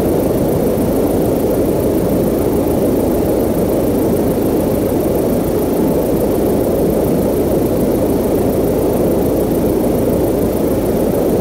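Helicopter in flight: a loud, steady drone of rotor and engine noise that holds even throughout.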